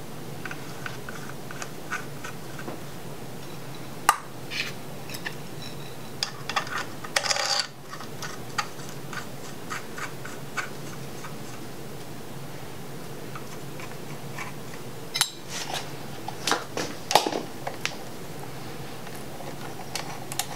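Scattered metallic clicks and clinks of a socket and extension on the connecting rod cap fasteners of an LS 5.3L engine, with a short rattle about seven seconds in and a cluster of clicks near the end. The cap is being snugged down over Plastigage to check rod bearing clearance. A steady low hum sits underneath.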